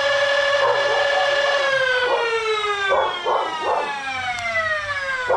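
Motors of a Foxfire Talon Select 3D-printed flywheel foam-dart blaster whining at a steady pitch, then spinning down with a steadily falling whine from about a second and a half in once the trigger is let go. A dog barks a few times in the background.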